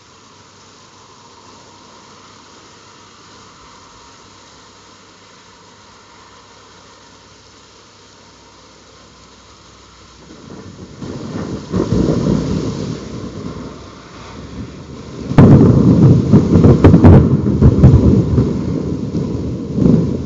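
Steady rain hiss, then thunder: a rumble swells about halfway through, and about three-quarters in a much louder thunderclap starts suddenly and keeps rumbling and crackling to the end.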